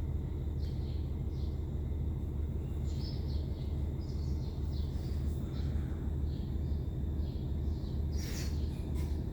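Birds chirping in short scattered calls over a steady low rumble of background noise, with a brief rustle near the end.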